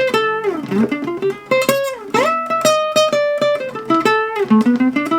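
Guitar music: a plucked melody with sharp note attacks, several notes sliding down or up in pitch.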